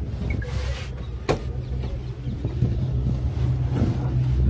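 Steady low vehicle rumble, with a single sharp click a little over a second in.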